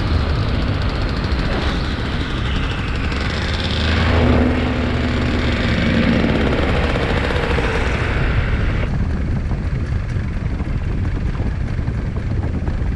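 Tandem paramotor trike's engine and propeller running steadily in flight, mixed with heavy wind rush on the microphone; the hiss eases a little about nine seconds in.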